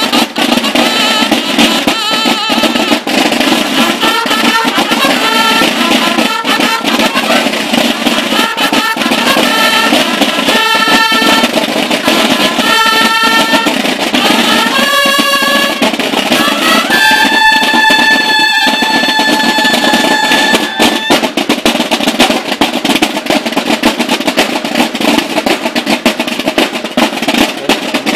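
Percussion ensemble playing: fast snare-drum rolls and beats throughout. High, held pitched notes sound over the drums around the middle, the longest one lasting about four seconds.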